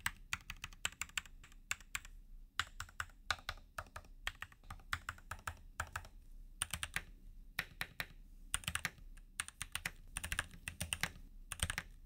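Keychron C1 H1 mechanical keyboard with pre-lubed Gateron Red linear switches being typed on after a foam-dampening and lube mod: an irregular run of muted keystrokes, some in quick flurries.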